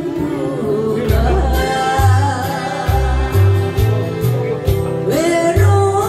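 A woman singing a slow Korean popular song into a microphone through a PA, over acoustic guitar and a steady bass accompaniment with long held notes.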